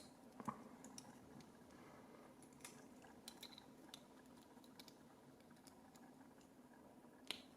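Faint, scattered small metal clicks and ticks as a tool works the retaining clip off the back of a euro cylinder lock's plug, with a sharper click about half a second in and another near the end.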